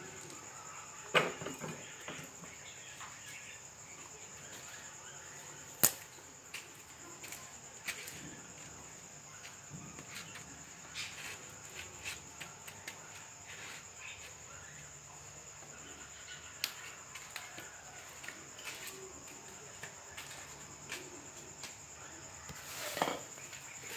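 Crickets chirring in one steady, high, unbroken note. A few sharp clicks stand out, the loudest about a second in and about six seconds in, with a rustle near the end.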